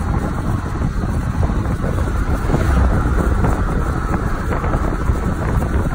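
Wind buffeting the microphone over the steady rumble of a moving vehicle, heard from the open bed of a pickup truck.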